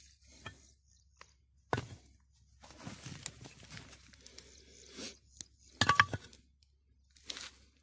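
Hands digging in loose soil, scraping and pulling away earth and clods in irregular bursts with short pauses between them, the loudest about six seconds in.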